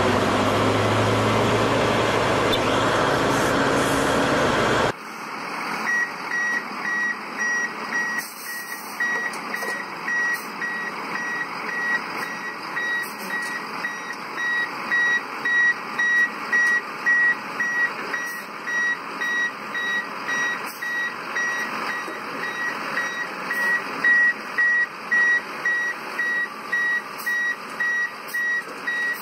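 A large mining dump truck's engine runs loudly and steadily for about five seconds. Then the sound cuts to a heavy truck's reversing alarm beeping steadily about once a second over quieter vehicle noise.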